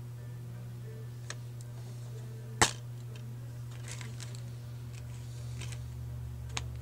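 Plastic DVD case opening: one sharp, loud snap about two and a half seconds in as the case clicks open, with a few lighter clicks of plastic being handled, over a steady low hum.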